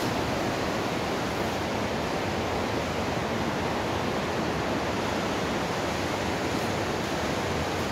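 Steady rushing of water in a large concrete sewer overflow culvert, heard as an even, unbroken roar that echoes through the concrete shafts.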